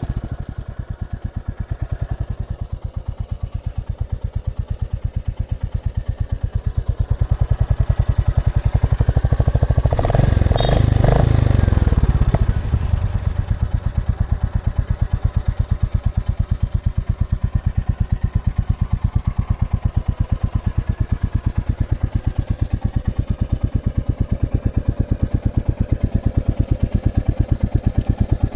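Royal Enfield Classic 350's single-cylinder engine idling with its steady, even thump. About ten seconds in it is revved briefly, then drops back to idle.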